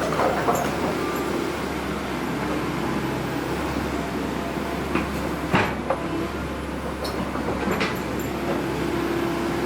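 Excavator diesel engines running steadily under load during a pull to recover a mini excavator sunk in mud, with a few sharp metallic clanks about five to six seconds in and again near eight seconds.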